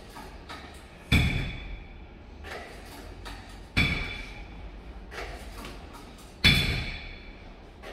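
Cable machine weight stack clanking three times, about every two and a half seconds, each a sharp metallic clank that rings briefly, with fainter knocks between: the plates dropping back onto the stack at the end of each triceps extension rep.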